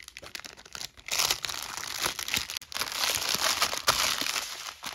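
Clear plastic bags of diamond-painting drills crinkling as hands gather them up, a busy crackle starting about a second in and easing off near the end.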